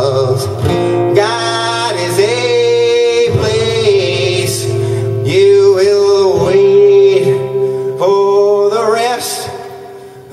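A man singing long, held notes while playing an acoustic guitar; the sound dies down near the end.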